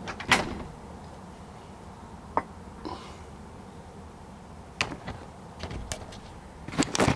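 A few scattered short knocks and clicks over a quiet steady background: the loudest about a third of a second in, a couple more in the middle and a small cluster near the end.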